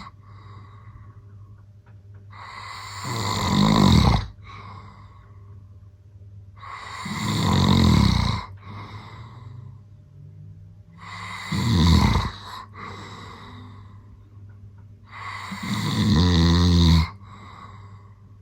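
A man snoring in his sleep: four long, rattling snores about four seconds apart, each swelling in loudness and then cutting off sharply, with quieter stretches between.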